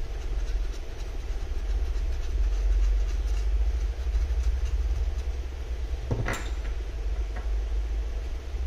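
Steady low background rumble, with faint small ticks of a metal pry tool working inside an iPad and one sharp clack about six seconds in as the tool is set down on the desk.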